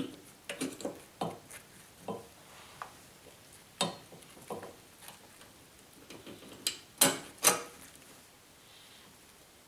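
Irregular metal clinks and knocks of hand tools and suspension parts being handled while a sway bar link is fitted, with two louder clanks close together about seven seconds in.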